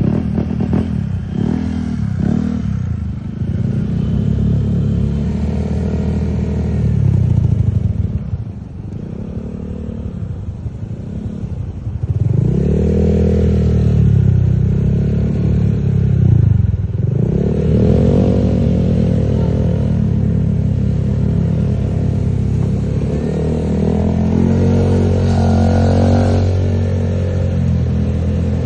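Excavator's diesel engine running under load, its pitch and level rising and falling again and again as the machine works, with some clatter. It is quieter for a few seconds about a third of the way in.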